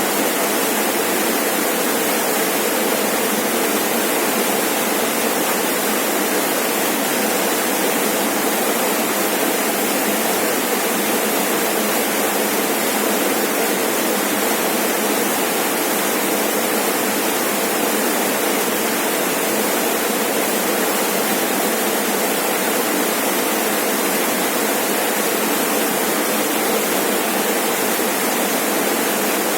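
Rainforest waterfall, water falling and splashing in a steady, unbroken rush.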